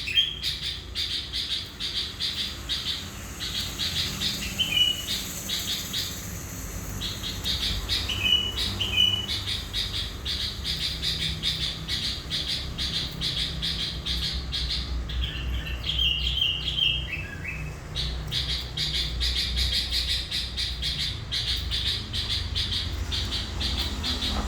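Sooty-headed bulbul (kutilang) singing busily: a fast, continuous chatter with short whistled phrases that drop in pitch, repeated a few times.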